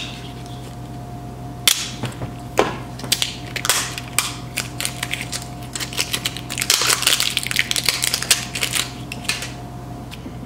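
Hands handling the plastic housing of an AcuRite weather-station sensor and a stack of AA batteries while opening its battery compartment: scattered plastic clicks, taps and scrapes, with a denser run of rapid clicking and scraping past the middle.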